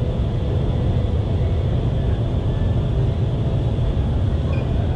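Indoor vertical wind tunnel's airflow rushing through the flight chamber: a loud, steady, unbroken rush with a deep rumble underneath.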